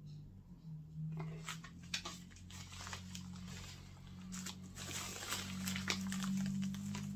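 Crinkling and rustling of a coffee bag being handled, with irregular crackles from about a second in, over a low steady hum.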